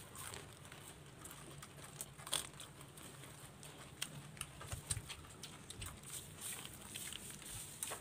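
Faint, scattered crunches and rustles of people eating dry puffed rice (muri) by hand, with a few sharper clicks standing out.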